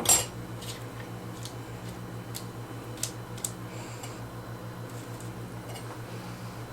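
Kitchen handling sounds while parsley is being prepared: a knock at the start, then a few faint, scattered light clicks and taps, over a steady low hum from a running appliance.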